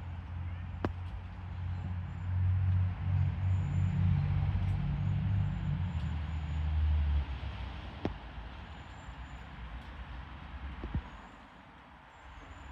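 Chestnuts falling and thumping on the ground three times: about a second in, about eight seconds in, and near the end. Under the first two, a low mechanical rumble like a vehicle engine runs for about seven seconds, then drops away.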